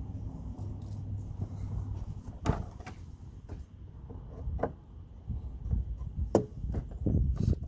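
Flat screwdriver prying at the end of a GMC Acadia hood strut to pop it off its ball stud: a run of sharp metal clicks and knocks at uneven intervals, thickest near the end. A low hum sits under the first couple of seconds.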